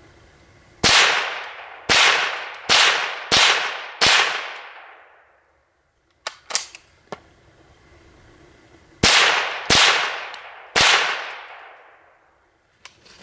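Ruger 10/22 semi-automatic .22 LR rifle firing eight shots. Five quick shots come first, then a pause with a few light clicks, then three more shots. Each sharp crack trails off in a fading echo.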